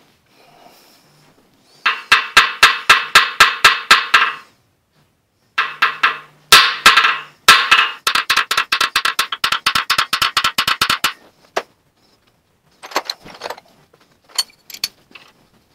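A hammer rapidly striking metal, about five or six blows a second, each blow ringing. The blows come in two long runs with a short pause between them. A few lighter metal clinks follow near the end.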